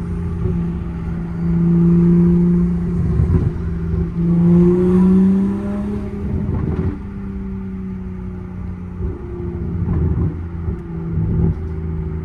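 Toyota A90 Supra's engine heard from inside the cabin while driving, its note rising and getting louder twice as the car accelerates, about one and a half seconds in and again around four and a half seconds, then settling to a steady cruise with road rumble.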